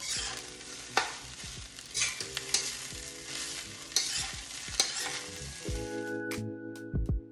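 Metal spatula stirring and tossing fried rice in a steel wok, the rice sizzling, with sharp clanks of the spatula against the wok every second or so. Music plays faintly underneath and takes over near the end.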